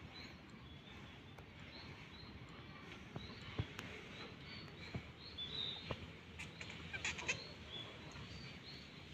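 Small birds chirping in the background: short, high chirps repeated throughout, several a second, with a few light knocks.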